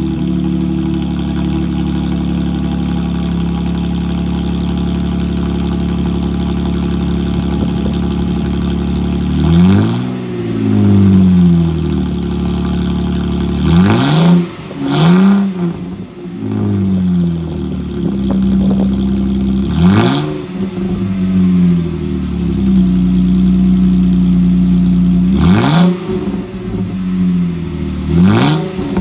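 2014 Jeep Wrangler JK's exhaust running with the muffler removed, idling steadily just after a cold start. About nine seconds in, the throttle is blipped, and then again several more times, each rev rising and falling in pitch.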